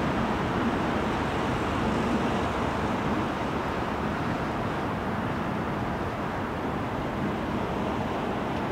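Steady road traffic noise: an even rush of passing vehicles with slight swells and no distinct events.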